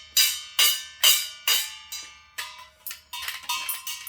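A toy xylophone struck with sticks by a toddler. There are four strong, evenly spaced hits in the first two seconds, then a quicker, uneven run of lighter hits. Each note rings briefly.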